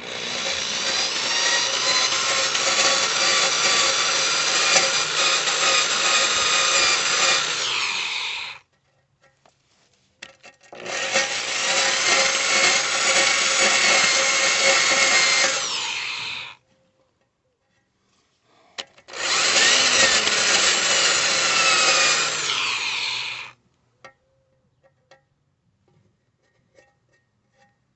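Power-driven wire brush running at slow speed and scrubbing the cut edges of a steel lawn mower deck, taking off the sharp burrs. It runs three times, about eight, five and four seconds long, and each time the motor's pitch falls as it winds down, with a few light clicks after the last run.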